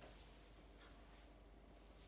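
Near silence: quiet room tone with a few faint, brief handling sounds.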